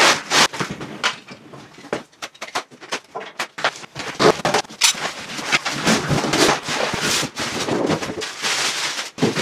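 A cardboard welder carton being handled and pulled off, with plastic packing straps stripped away: a run of irregular knocks, scrapes and rustles.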